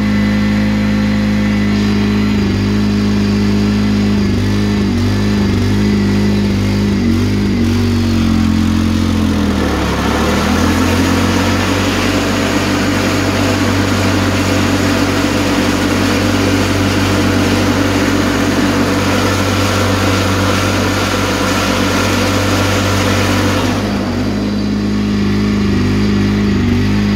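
Honda HT3813 garden tractor's liquid-cooled engine running steadily. About ten seconds in its note dips briefly and a louder whirring hiss joins it, then falls away again near the end.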